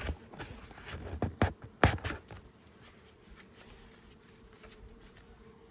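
Honeybees buzzing in a steady hum around an opened nucleus hive, with a few sharp clicks and knocks in the first two seconds, the loudest near the end of them.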